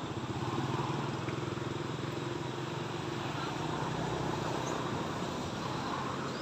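A motor vehicle's engine running steadily with an even, low hum.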